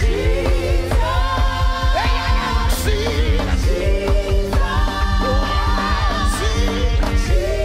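Live gospel worship song: singing over a band with a steady beat and a heavy bass line.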